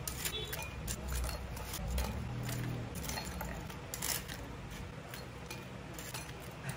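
Metal kitchen tongs clicking as crisp, battered fried mussels are set down one by one on a ceramic plate: irregular light clicks and taps, the sharpest about four seconds in.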